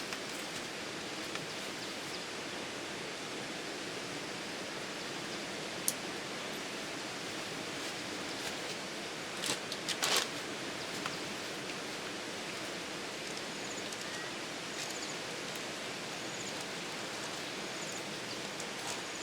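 Steady rushing of water throughout, with a click and a brief cluster of rustling about halfway through, and a few faint high chirps later on.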